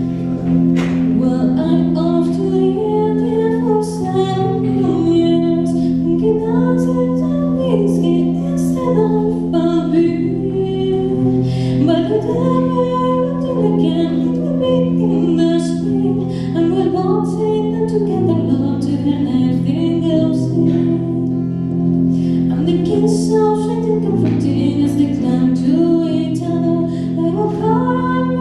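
A woman singing a slow ballad melody in long gliding phrases over sustained accompaniment chords.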